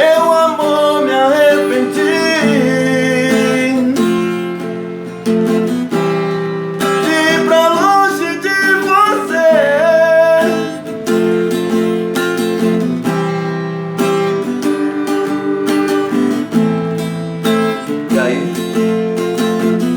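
Acoustic guitar strumming chords in a sertanejo style, with a wordless melody line over it in two phrases: one near the start and one about halfway through.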